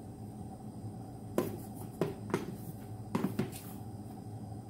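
A handful of light knocks and clunks as a plastic flour canister and other kitchen containers are handled and set down on a counter, over a steady low hum.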